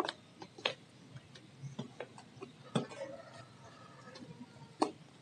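Sticky white slime made from glukol glue being squeezed and pressed between the fingers, giving irregular wet clicks and pops.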